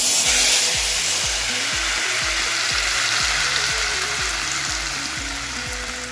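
Smoking-hot oil poured from a ladle into a tandoori spice marinade, sizzling as it hits. The sizzle starts suddenly and slowly dies down.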